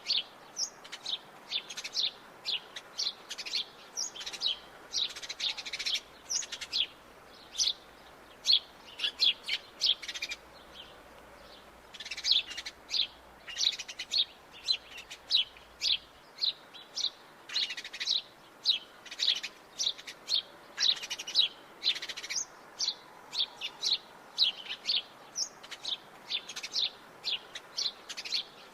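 House sparrows chirping: a steady run of short, repeated chirps, several a second, with a brief pause about halfway through.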